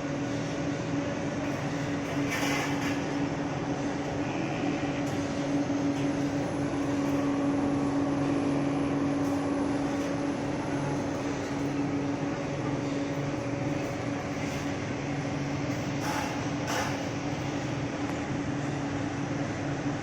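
Steam-heated mawa-making plant running: a steady mechanical hum with a constant low tone over a rushing noise, and a few brief metallic clanks about two seconds in and again near sixteen seconds.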